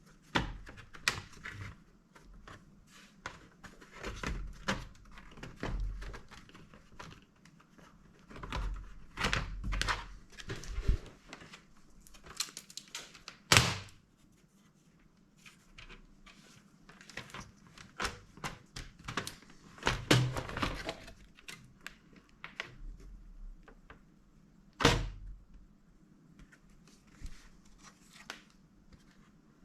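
Irregular clicks, taps and knocks of a Dell Inspiron 15 3000 laptop's case and parts being handled during disassembly, with a sharper knock about halfway through and another near the end.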